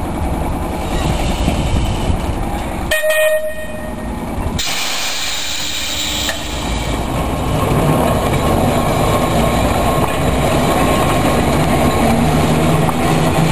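Manx Electric Railway tram car and trailer moving on the rails during a gravity shunt, with a steady rolling rumble. About three seconds in comes a brief shrill tone, followed by a hiss lasting about a second and a half. The rumble grows louder and steadier in the second half.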